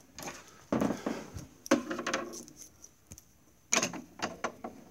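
Handling noise: a few separate plastic knocks and clicks in the first two seconds, then a quick cluster of clicks near the end.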